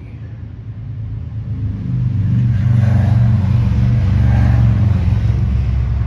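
A motor vehicle engine running, growing louder over the first two seconds and then staying loud.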